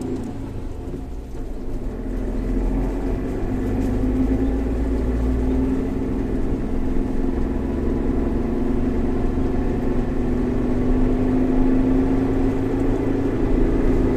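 Suzuki Jimny JB64's 660 cc turbocharged three-cylinder engine running steadily under way, a steady drone over a low rumble that grows louder over the first few seconds.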